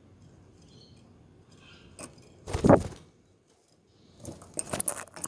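Pet budgies moving about their cage: a few faint chirps, a single loud thump about two and a half seconds in, then a run of quick light clicks and rattles near the end.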